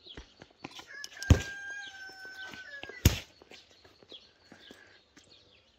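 A rooster crows once, a steady held call of about two seconds. Over it come light clicks and clinks of utensils, and two sharp knocks, about a second in and about three seconds in.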